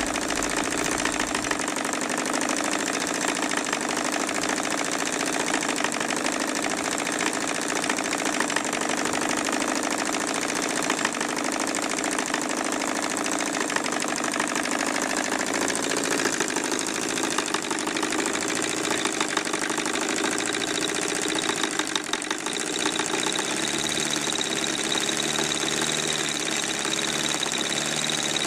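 Four-cylinder, four-stroke model diesel engine with a 7-inch cast-iron block, running steadily with a fast, even stream of firing pulses. A thin high whine comes in about two-thirds of the way through.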